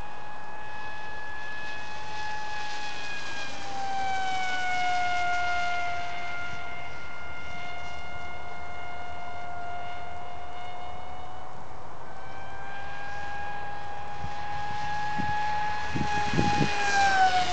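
Dynam Hawksky RC plane's electric motor and propeller giving a steady whine as it flies past. The pitch drops about four seconds in, climbs again later on, and falls sharply near the end as the plane makes another pass. A few low thumps come just before that last drop.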